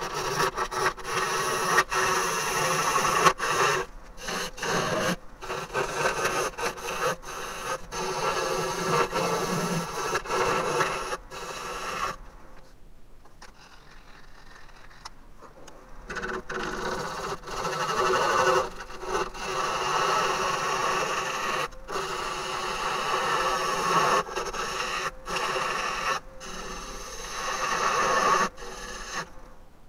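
Bowl gouge cutting the outside of a green Japanese ornamental cherry end-grain bowl spinning on a wood lathe: a rough scraping hiss of shavings peeling off, in stroke after stroke with short breaks. The cutting stops for a few seconds about twelve seconds in, then resumes.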